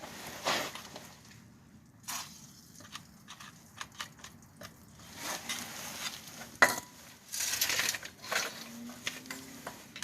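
Hand tools and metal parts clinking and clanking during work under a car, with a single sharp, briefly ringing metal clank about two-thirds of the way through.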